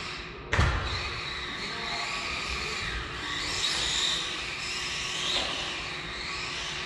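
Redcat Cyclone XB10 electric RC buggy driving on a carpet track. Its motor whine rises and falls with the throttle over a steady hiss. A single sharp thump comes about half a second in.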